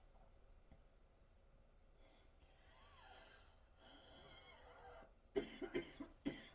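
A woman's faint wheezy breathing with thin whistling pitches for a few seconds, then a quick run of about four coughs near the end. She says her airways are blocked and she is being suffocated.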